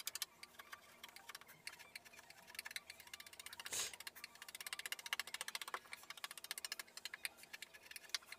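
Hand-pushed wood carving chisel paring a carved wooden panel: a rapid run of small clicks and crackles as the blade shaves the wood, with one louder scrape about four seconds in.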